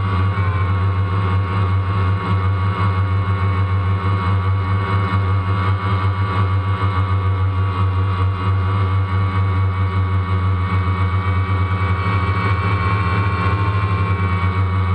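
DJI Phantom quadcopter's electric motors and propellers buzzing steadily in low flight, heard close up from the camera mounted on the drone, the pitch wavering slightly as it manoeuvres.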